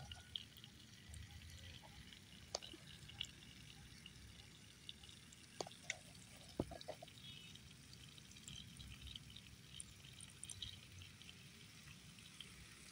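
Faint hiss and patter of water from a rain pipe irrigation line spraying over a wheat crop, with a few scattered drip-like ticks.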